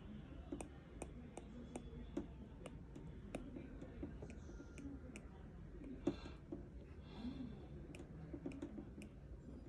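Stylus tip tapping on an iPad's glass screen: light, irregular clicks, about two or three a second, with one louder tap about six seconds in, over faint background noise.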